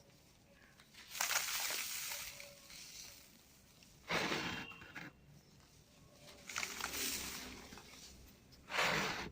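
Dry cement balls and cubes being crushed and crumbling, in four separate crunchy bursts about two to three seconds apart.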